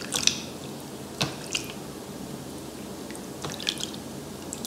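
Wet hands splashing and rubbing water over the face, rinsing off a cleansing cream: a few short clusters of splashes and drips, near the start, about a second in, and again about three and a half seconds in.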